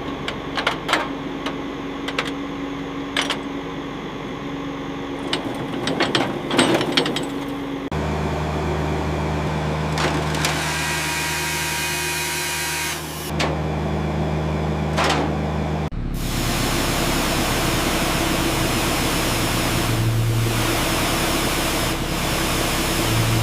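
Workshop power tools and machinery running in several short clips that cut abruptly from one to the next. Scattered clicks and knocks come first, then steady motor hum with hiss, and a loud steady hiss near the end.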